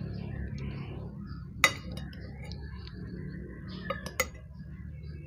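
Eating utensils clinking against a dish: one sharp clink about one and a half seconds in, then two more in quick succession near four seconds, over a steady low hum.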